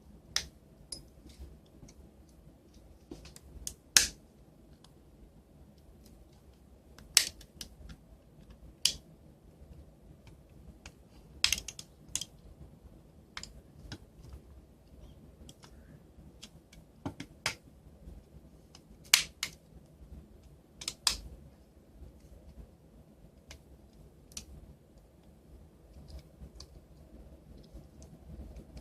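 Irregular sharp plastic clicks and snaps as the Palm Treo 755p's plastic case is pried apart and its parts handled, with a handful of louder snaps among many small ticks.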